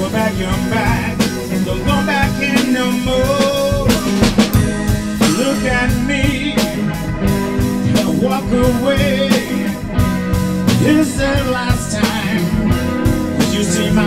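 A blues-rock band playing live: electric guitar over a steady drum kit beat.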